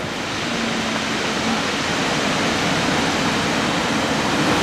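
Steady rush of ocean surf breaking on a sand and stone beach, swelling slightly over the few seconds.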